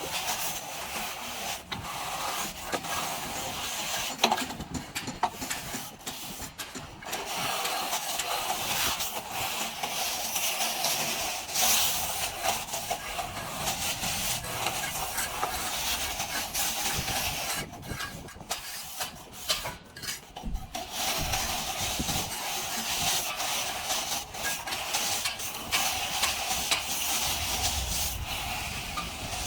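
Plastering trowel scraping and rubbing across a plastered wall in long, continuous strokes, pausing briefly twice.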